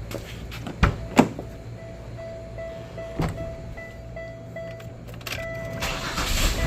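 A 1998 Chevy Venture minivan being started: two door or seat knocks, then the dashboard warning chime beeping steadily about two to three times a second, and near the end its 3.4-litre V6 engine cranking and catching, running on after.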